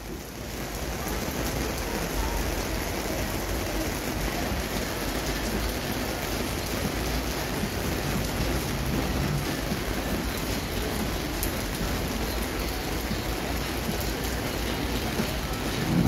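Steady rain falling, an even hiss with a low rumble underneath. A brief louder noise comes right at the end.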